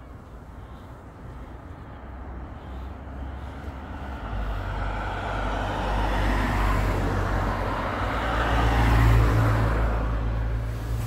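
A motor vehicle passes by: engine hum and tyre noise swell over several seconds, peak near the end, then begin to fade.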